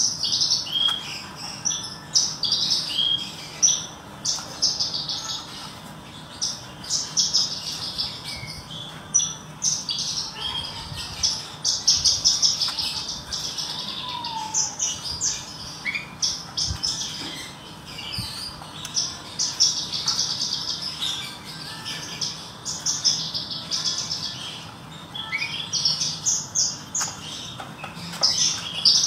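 Javan bush lark (branjangan, parva race) singing a long, continuous song of rapid, varied high chirps and trills with only brief pauses.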